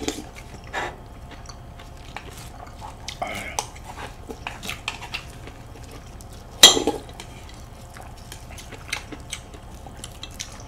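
Cutlery clinking and scraping on dishes: chopsticks, a table knife and a spoon tapping plates and a stone bowl. Scattered light clicks, with one louder clack about six and a half seconds in.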